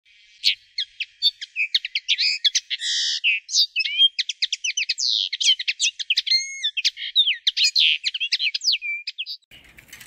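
A songbird singing a fast, varied song of chirps, trills and whistled slurs, with no background sound. It stops about nine and a half seconds in.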